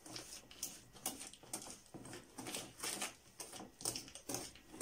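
Wire balloon whisk beating softened butter into a runny mixture in a plastic tub: quick wet clicking and sloshing strokes, about two to three a second.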